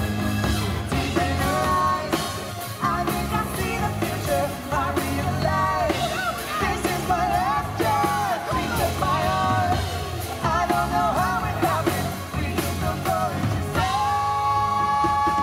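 Live pop-rock band playing amplified through a PA, with singers' voices in short sung phrases and one long held note near the end, over electric bass and synth keyboard.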